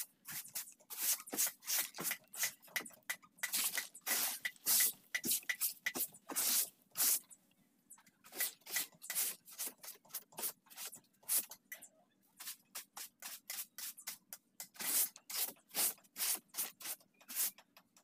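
A stiff stick broom sweeping dry leaves and grit off the inside of a fiberglass boat hull: quick, repeated scratchy strokes with a couple of brief pauses, cleaning the hull before it is used as a mold.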